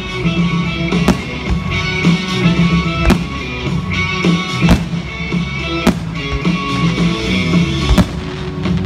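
Music plays throughout, with several sharp bangs of aerial firework shells bursting at uneven intervals of one to two seconds.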